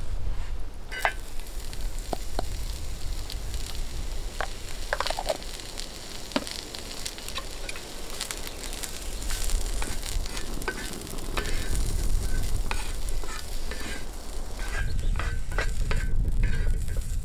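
Mushrooms and onion sizzling in a flat steel pan over a wood fire, with a wooden spatula scraping and tapping against the pan as they are stirred.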